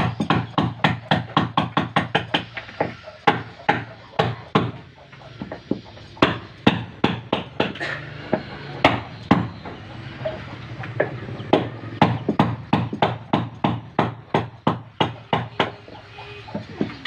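Hammer blows on timber during wooden boat building, struck in quick runs of several blows a second with brief pauses between runs.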